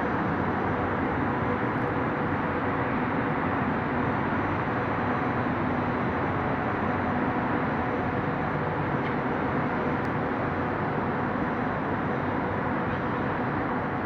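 Steady outdoor city noise heard from high above the streets, a constant roar of distant traffic and wind with a faint low hum.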